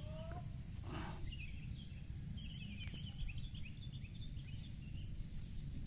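Outdoor ambience of small birds twittering in quick chirps from about two seconds in, over a steady low rumble of wind and a steady high hiss. A brief rustle comes about a second in.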